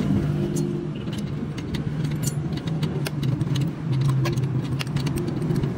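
Light metallic clinks and clicks of tools and engine parts being handled, over a steady low engine hum that dips slightly in pitch about two-thirds of the way through.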